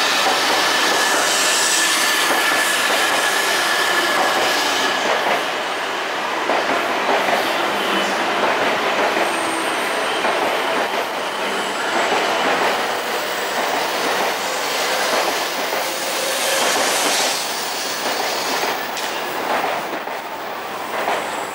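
E3-series and E5-series Shinkansen pulling out of the station together and gathering speed past the platform: steady rolling noise, with a thin whine in the first few seconds and scattered clacks of wheels over rail joints and points. It eases off slightly near the end as the cars go by.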